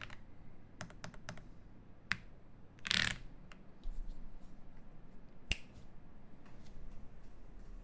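Keystrokes on a Cyberboard R3 mechanical keyboard with lubed Cow (UHMWPE) switches, FR4 plate and GMK keycaps: a few separate key presses at irregular spacing, with a louder, longer clack about three seconds in.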